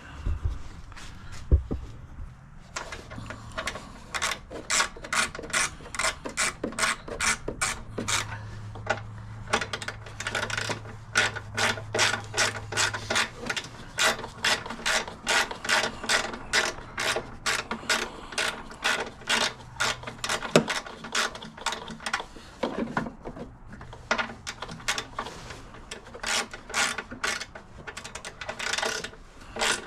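Socket ratchet wrench clicking in long, even runs of about three clicks a second as bolts are tightened, with a short pause a little past twenty seconds in.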